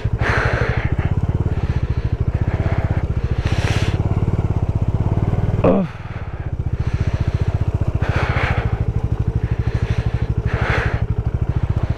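Motorcycle engine running at low, steady revs while riding down a steep, loose, muddy track. The note dips briefly about halfway through, and a few short scraping bursts come every couple of seconds.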